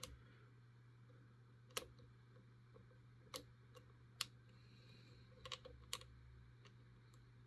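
Faint, scattered clicks from a hook pick working the pin stack of a Master Lock S31 LOTO padlock under light tension, about half a dozen single clicks spread over several seconds.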